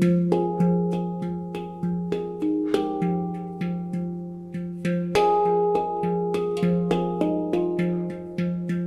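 F Pygmy handpan with a nitrided steel shell being played by hand: a steady run of struck notes, about two to three a second, each ringing on. The low central note near F3 is struck repeatedly beneath the higher tone fields.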